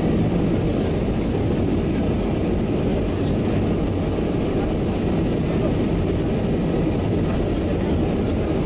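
Steady low rumble of an Airbus A320's engines and rushing air, heard inside the cabin beside the wing during the descent to land.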